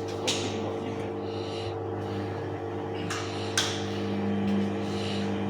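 Bauknecht WAS 1400 washing machine running a wash: the motor hums steadily while water and laundry swish in the turning drum in recurring surges, with a few sharp clicks.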